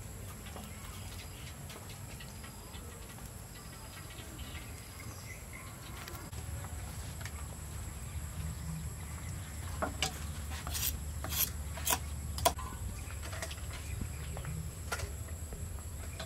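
Insects trilling steadily in the background, with a low rumble that comes up about six seconds in. A handful of sharp clicks or taps sound about ten to twelve seconds in.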